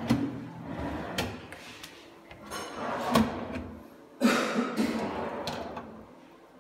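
Modular kitchen cabinet drawers being slid open and pushed shut: a run of sliding rattles, each with a knock, the loudest about four seconds in.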